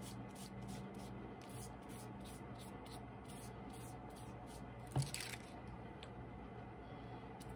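Foam brush dabbing and rubbing glue over a sheet of paper: faint, quick scratchy strokes. About five seconds in, a light knock.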